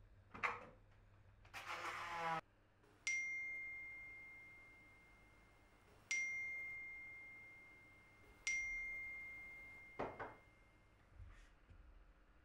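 Three identical bell-like phone notification dings about three seconds apart, each a single clear tone that rings out slowly. A knock and a brief rushing sound come before them, and another knock follows near the end.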